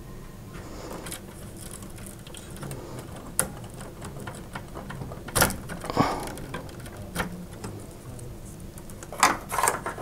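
Hands handling cables and parts inside an open metal PC case: a run of small clicks, rattles and rustles, with sharper knocks about five and a half, six and nine seconds in.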